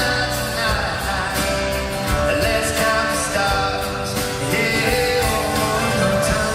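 Live pop band performance with a steady drum beat and guitar under male group vocals, heard through a fan's recording in a large arena.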